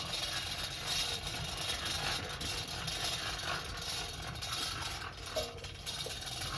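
A steady, motor-like running noise with a low rumble underneath and hiss on top, unbroken throughout.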